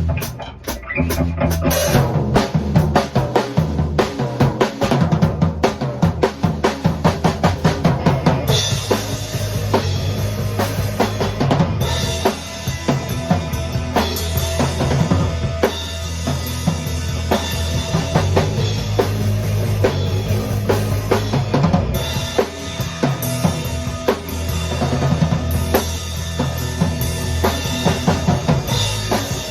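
A band playing a song live, led by a drum kit with kick and snare on a steady beat over bass notes; cymbals come in about eight seconds in and keep going.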